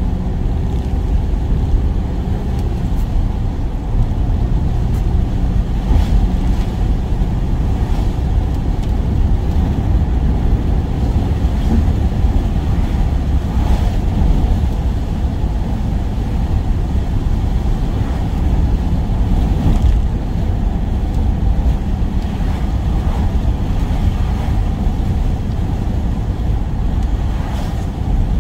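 Work van on the move: steady engine and road noise, with faint ticks now and then.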